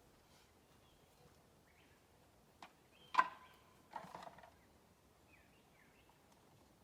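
Quiet outdoor background with a few short bird calls; the loudest, a sharp pitched call, comes about three seconds in, with another about a second later.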